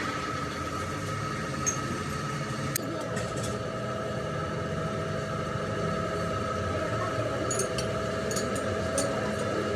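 A workshop metalworking machine running steadily with a constant hum, a second tone joining about three seconds in. Scattered short metallic clinks, more of them near the end.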